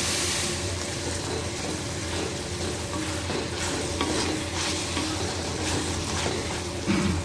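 A wooden spatula stirring and scraping through cauliflower masala in a kadai, over a steady sizzle of the frying food.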